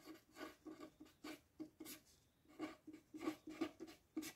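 Pen scratching on paper in a quick series of short, faint strokes as Hindi letters are written out by hand.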